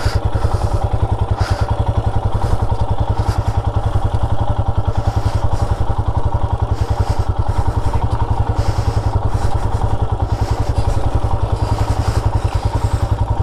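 Royal Enfield Himalayan's single-cylinder engine running steadily at low revs with an even, rapid beat as the motorcycle crawls along a rough dirt trail, heard from the rider's seat.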